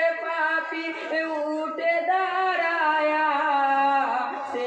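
Male voices singing a Bangla marsiya, a Muharram lament for Husain, in long held notes that step from pitch to pitch, with no instruments.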